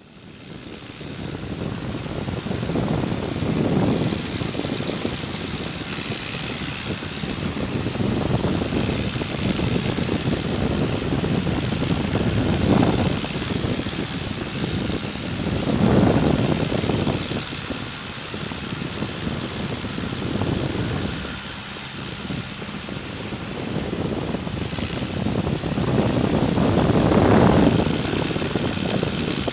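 De Havilland Tiger Moth biplane in flight, heard from the open cockpit: its four-cylinder Gipsy Major engine and propeller run steadily under rushing wind. The sound fades in over the first couple of seconds, then swells and eases every few seconds.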